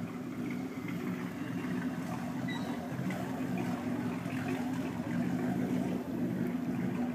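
Vintage Chris-Craft upswept triple-cockpit runabout's inboard engine running at low speed, a steady low drone that grows a little louder as the boat comes closer.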